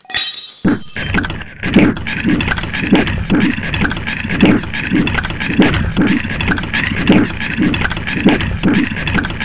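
A sudden crash of something breaking with a glassy clink, then a loud, steady rhythmic pounding, a little over two beats a second.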